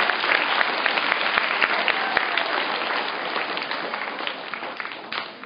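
Audience of schoolchildren applauding in a hall, a thank-you round that fades away near the end.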